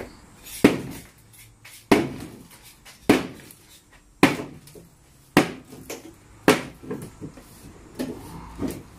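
Claw hammer striking an old painted wooden cabinet and shelving unit to knock it apart: six hard blows a little over a second apart, then lighter, quicker knocks near the end.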